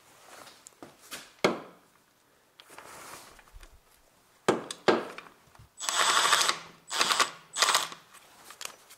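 Makita 18 V cordless power tool with a 17 mm socket running on an engine-mount bolt in three short bursts, the first nearly a second long and the other two brief, as it works the bolt loose. Before the bursts come a few sharp metal clicks and knocks as the socket is fitted.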